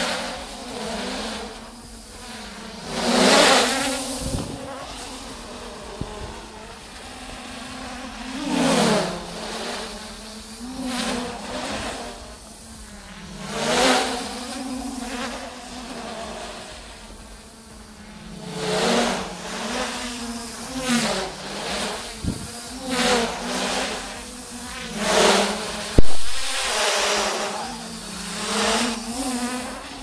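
Traxxas Aton quadcopter's electric motors and propellers buzzing in flight in sport mode, the pitch dipping and rising again and again, with surges of louder whooshing every few seconds. A sharp click near the end.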